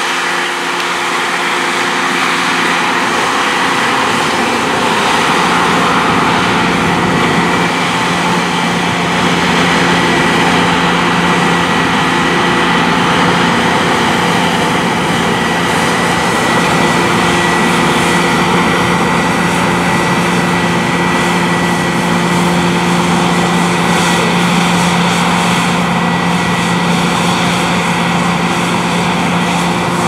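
New Holland CR9.90 combine harvester running under load while cutting wheat: a steady engine and machinery drone with a high whine held through it. A low rumble fills in over the first few seconds, then the sound stays even.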